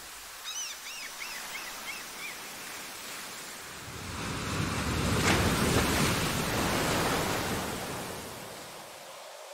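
Ocean surf: a wave swells in, crashes and washes back, loudest about midway and then fading. Near the start there is a short run of high chirps.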